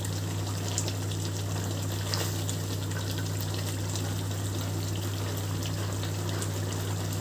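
Thick prawn malai curry bubbling in a wok in its finishing stage, with a silicone spatula stirring through it and faint scattered pops and ticks. A steady low hum runs underneath.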